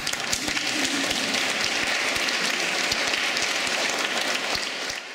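Audience applauding, a dense patter of many hands clapping in a reverberant hall, which cuts off suddenly near the end.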